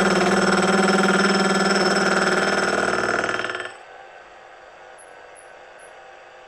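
Milling machine running with a gear cutter cutting the teeth of a small bevel gear: a loud, steady metallic ringing whine that drops off suddenly about three and a half seconds in, leaving a quiet steady hum.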